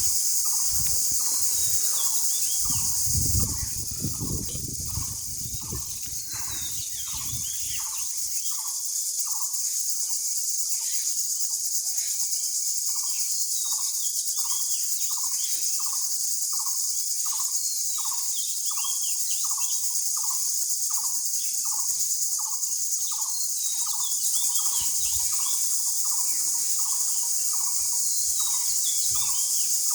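Outdoor insect chorus: crickets keep up a steady high-pitched shrilling. Through it a short call is repeated evenly about one and a half times a second, with scattered bird chirps. A low rumble runs for a few seconds near the start.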